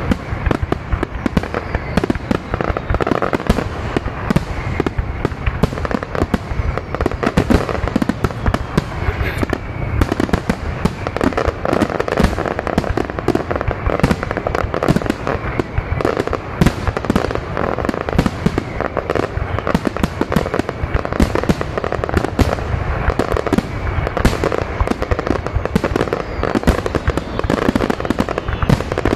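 Large aerial firework display shells bursting overhead in a dense, unbroken barrage: overlapping bangs with constant sharp crackling between them.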